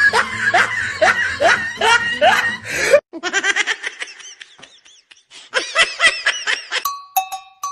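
Laughter in a rapid run of rising 'ha' bursts, cut off suddenly about three seconds in and followed by a second, higher laugh. Near the end a chiming music jingle starts, two bell-like notes repeating evenly.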